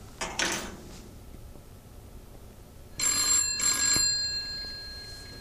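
Old desk telephone's bell ringing: two short rings in quick succession about three seconds in, fading away over the next second. Before it, near the start, a brief rustle of papers.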